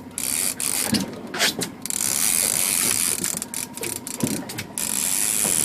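Fishing reel ratcheting in spurts with brief breaks while a big salmon is being played on the line.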